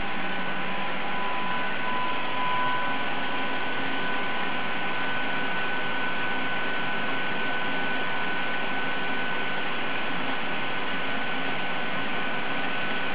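Drum carding machine for wool running steadily: an even mechanical whir with two constant high tones over it.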